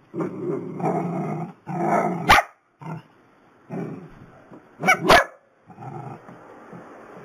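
Two small dogs growling and barking at each other in rough play. Rough growling runs through the first second and a half, with a sharp bark about two seconds in and a loud quick pair of barks about five seconds in.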